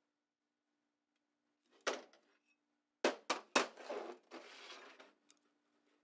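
Metal workpiece and tools being handled on a steel welding cart: one knock, then three sharp metal knocks in quick succession, followed by about a second and a half of scraping rattle.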